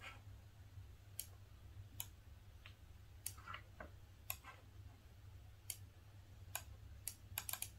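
Irregular clicks from a laptop's keys and touchpad as it is worked, coming in a quicker run near the end, over a faint low steady hum.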